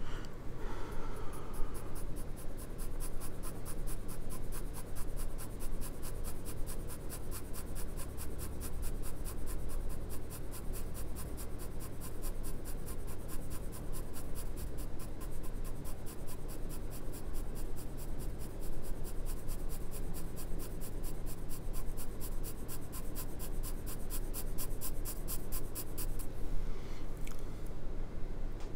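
Graphite pencil shading on drawing paper: quick, even back-and-forth strokes scratching steadily, stopping near the end, over a steady low hum.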